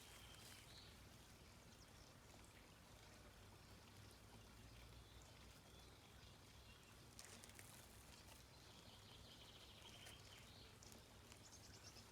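Near silence: faint outdoor ambience with a steady low hum, a few faint high chirps and a brief rustle about seven seconds in.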